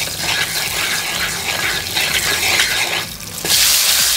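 Coconut oil and salt sizzling in a hot wok while a wooden spatula stirs and scrapes across the pan. About three and a half seconds in, the sizzling jumps louder as bay leaves go into the oil.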